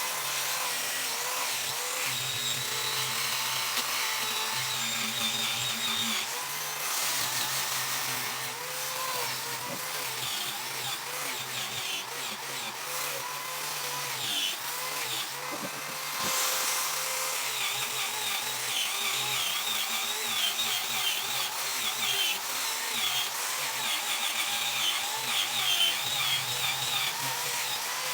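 Electric power tool running steadily while working wood.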